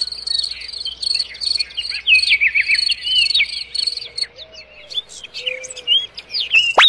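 Birds chirping and calling over a steady, pulsing high insect trill. A quick rising whistle-like sweep comes right at the end.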